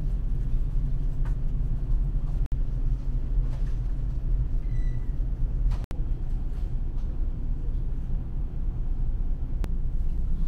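Steady low rumble of the car ferry Akashia's engines and machinery, heard inside the ship. A short high tone sounds once about five seconds in.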